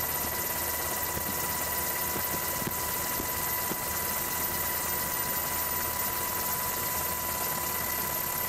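Helicopter noise heard from aboard: a steady drone from the rotor and engine, with a constant high whine running through it.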